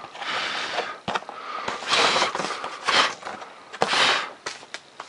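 A hand brushing over the packing-tape-covered foam airframe of a model jet to clear off hair and debris, in several swishes about a second apart, with a few light knocks as the model is handled.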